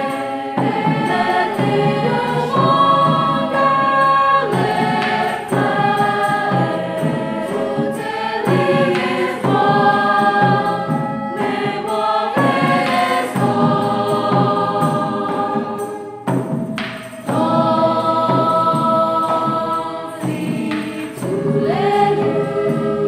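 Mixed choir singing held chords in phrases of a few seconds, each phrase ending in a short breath pause.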